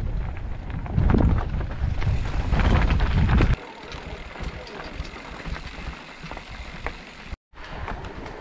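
Mountain bikes riding over a gravel trail: wind buffeting the microphone and tyres crunching on loose stones, loud for the first few seconds, then after a sudden cut a quieter rolling noise with small clicks and rattles.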